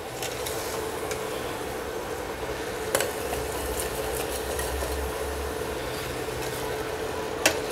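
A metal spoon stirring chunks of tripe stew in a stainless steel pot, with two sharp clicks of the spoon against the pot, one about three seconds in and one near the end, over a steady hum.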